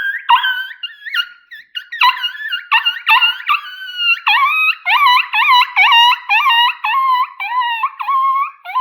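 Yote Punchin' coyote howler, a mouth-blown predator call, sounding a rapid run of high yelping coyote notes. The notes come choppy and uneven at first, then settle about four seconds in into an even series of about three yelps a second, each dipping and bending back up in pitch.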